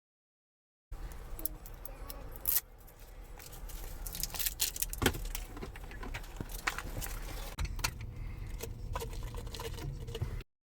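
Irregular clicking and rattling of small hard objects being handled, over a low steady rumble.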